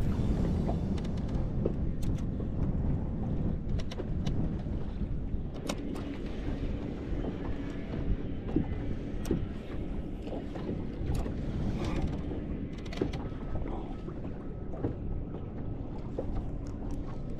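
Wind buffeting the microphone and water lapping against a fishing boat's hull, with scattered light knocks and a faint steady hum through the middle.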